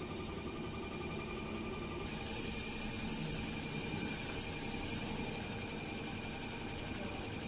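Richpeace heating-wire sewing machine running with a steady mechanical hum. A high hiss starts about two seconds in and stops some three seconds later.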